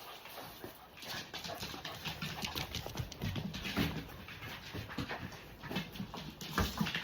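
A dog panting, amid many quick rustles and clicks throughout.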